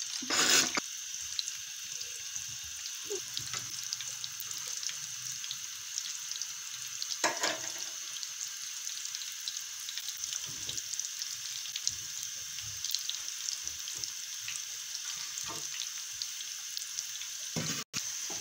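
Potato and onion pakoras in gram-flour batter deep-frying in hot oil: a steady sizzle, with brief louder moments about half a second in and again around seven seconds.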